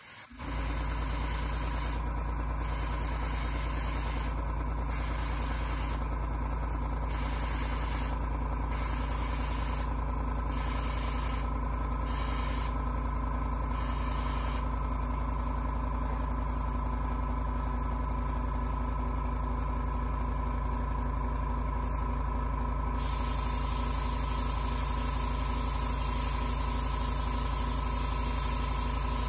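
An electric motor starts up and runs with a steady hum. Over it an airbrush hisses in short bursts, about one every second or two, then more continuously through the second half as paint is sprayed through a scale stencil.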